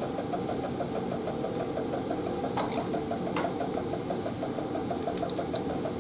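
A steady machine hum with a fast, even flutter, from lab equipment running in the background. Light clicks of steel binder clips being picked out of the bin and snapped onto the glass plates come a few times, mostly in the middle and near the end.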